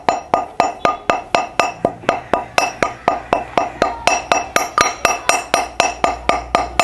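Brass pestle pounding cinnamon sticks in a brass mortar (mehraz): a steady run of about four ringing metallic strikes a second.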